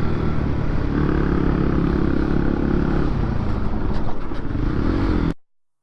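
Motorcycle engine running while riding, its pitch rising for a couple of seconds about a second in. The sound cuts off suddenly near the end.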